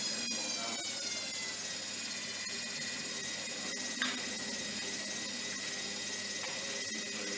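Zanussi FlexiDose ZWG 6161 P washing machine's motor whining, the pitch falling over the first two seconds as it slows and then holding steady, with a single sharp click about four seconds in.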